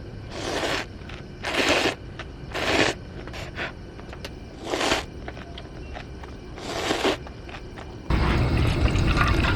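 Five short hissing bursts of water, then about eight seconds in a sudden switch to loud, steady rain.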